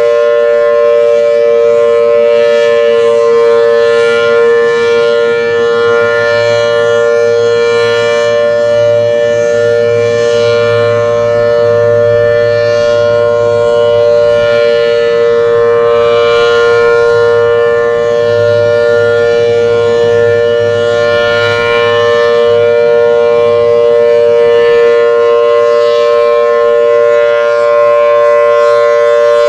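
A Federal Signal Thunderbolt 1000T tornado siren, installed in 1959, sounding loud and steady for a monthly test. It holds one unchanging pitch, two tones sounding together as a chord, with no rise or fall.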